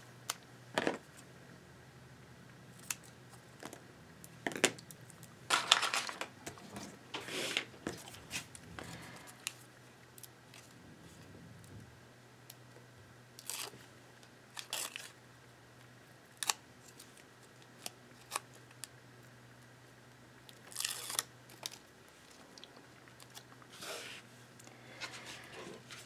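Paper and adhesive backing being handled by hand: short, irregular rustles and peeling sounds a second or a few seconds apart, as release liners come off foam adhesive strips and paper pieces are pressed onto a card.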